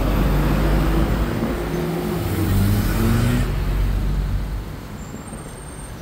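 Road traffic: a motor vehicle's engine running close by, its pitch rising for a moment about two to three seconds in, after which the traffic noise fades somewhat.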